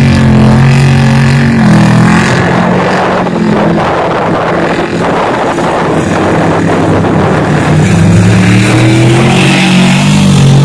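Off-road truck engine held at high revs while its wheels spin through deep mud, throwing up mud spray; the engine pitch climbs about eight seconds in.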